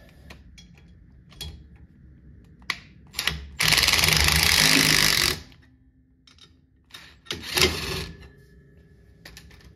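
Cordless Ryobi impact wrench hammering 13 mm bolts into the threaded holes of a brake drum to jack the stuck drum off the hub: a long burst of about two seconds a little after three seconds in, then a shorter burst near the end.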